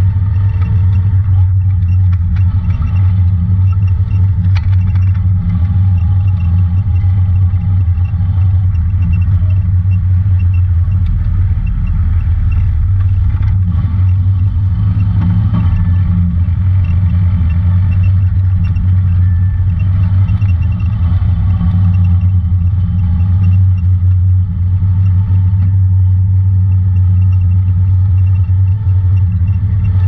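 Honda Talon 1000 side-by-side driving steadily over a dirt trail. Its parallel-twin engine makes a loud, constant low drone, with rattling from the rough ground.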